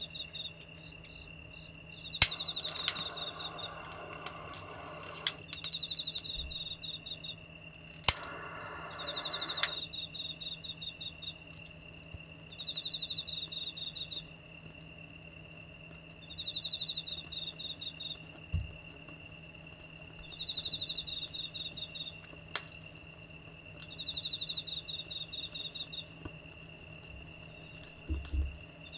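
Crickets chirping in short, evenly spaced trills about every two seconds. Early on come two stretches of hissing with sharp clicks, as a lighter sets a small solid-fuel tablet in a wire stove stand alight. A faint steady hum runs underneath.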